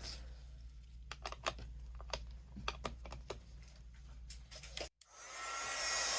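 Light clicks and taps of supplies being handled. About five seconds in, a handheld electric dryer switches on and runs with a steady rushing blow, drying the ink on the card.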